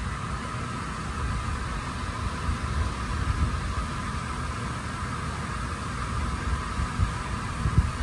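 Outdoor ambience: an uneven low rumble, typical of wind buffeting the microphone, over a steady mid-pitched drone.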